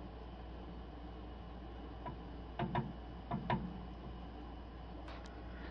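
Pinion flange of a Ford F-250 Super Duty rear differential turned by hand, giving a few light clicks and knocks about two to three and a half seconds in and two fainter ticks near the end, over a steady low hum. The flange is being turned to feel for drag after tightening the new pinion nut, to set the pinion bearing preload.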